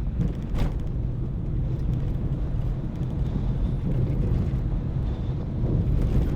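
Car driving along a road: a steady low rumble of engine and tyres, with a brief knock about half a second in.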